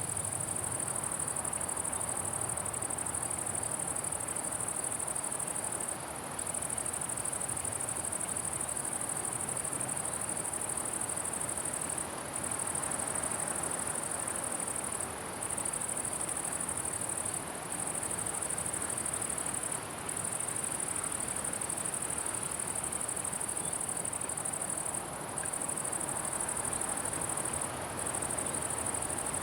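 An insect singing a continuous high-pitched buzz, broken by short pauses every few seconds, over a faint steady background hiss.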